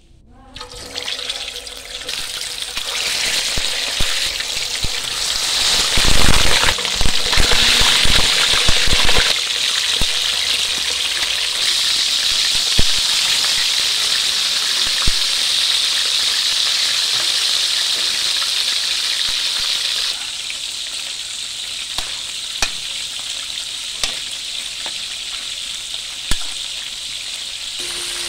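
Fish deep-frying in hot oil in a pan: a loud, steady sizzle that swells in the first few seconds as the fish go in, with heavy spattering for a few seconds and scattered sharp pops of oil after that.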